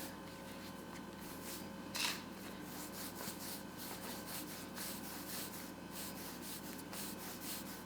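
Hands rolling buttery almond cookie dough into long strings on a work surface: a faint, steady rubbing, with one brief louder brush about two seconds in.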